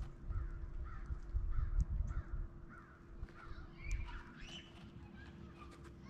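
Crows cawing in a fast series of short, harsh calls, two or three a second, through the first half. A few higher calls follow about four seconds in, over a low rumble.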